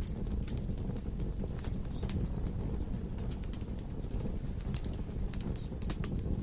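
Wood logs burning in a fireplace: a steady low rumble of the fire with irregular sharp crackles and pops from the wood.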